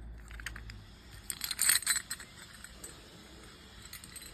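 Metal parts of an old Kwikset deadbolt clinking and rattling as the lock is handled and pulled out of the door. The rattling is loudest for about half a second a little over a second in, with scattered small clicks around it.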